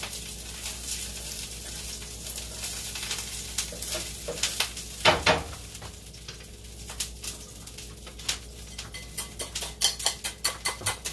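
Food sizzling in a frying pan, with metal utensils clattering against pans and dishes: one louder clank about halfway through, and a quick run of clinks, several a second, near the end.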